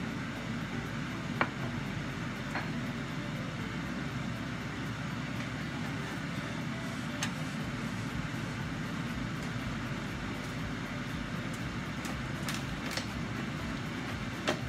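Steady low rumbling noise with a few light, sharp clicks scattered through it.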